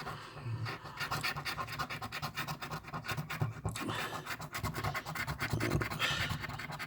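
Coin or scraper scratching the latex coating off a paper lottery scratch-off ticket: a fast, continuous rasping of short strokes.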